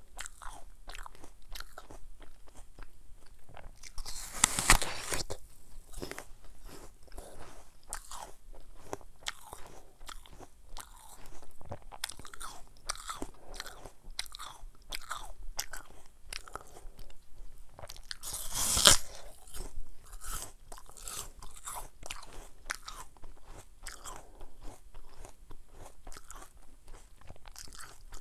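Crisp raw apple eaten close to a clip-on microphone: two loud crunching bites, about four and a half seconds in and again about nineteen seconds in, with steady wet crunchy chewing of the fruit between and after them.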